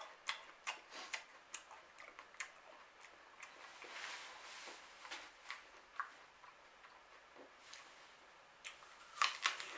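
A person chewing a crisp apple, with crunching clicks about two or three a second at first, then a cluster of louder crunches near the end.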